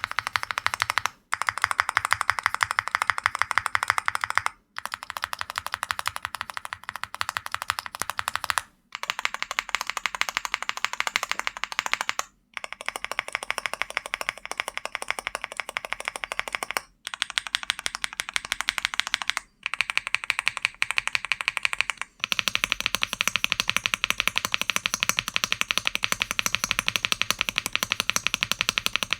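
Fast, continuous typing on a computer keyboard picked up by a Fifine Ampligame A8 USB microphone, as a string of short takes cut apart by brief silences. Each take sounds a little different in tone.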